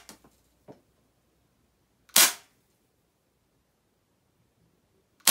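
Airsoft USP pistol firing single shots: a sharp pop about two seconds in and another right at the end, each with a short decay, and a faint click in between.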